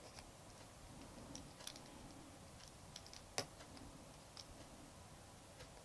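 Near silence with a few faint, scattered clicks and taps of a stylus on a drawing tablet, the sharpest one about three and a half seconds in.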